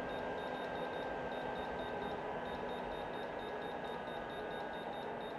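Xiaomi Microhoo mini air cooler's fan running steadily, with a train of short high-pitched electronic beeps, about four or five a second with brief gaps.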